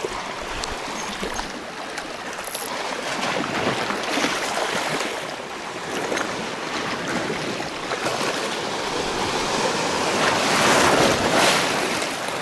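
Sea waves washing over shoreline rocks. They come in several rising and falling surges, the loudest near the end.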